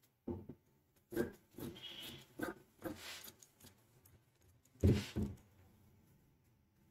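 Scissors cutting through cloth: a series of snips and crunching cuts, the loudest two about five seconds in.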